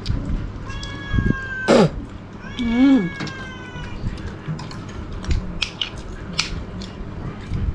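A cat meowing several times in the first half, over light clinks of spoons on plates.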